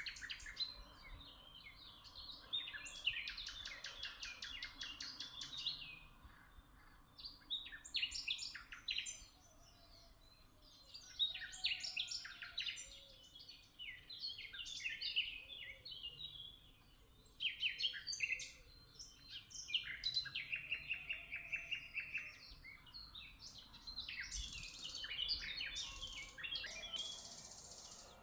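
A chorus of small songbirds chirping and twittering, with many quick, high calls overlapping and short lulls between bursts.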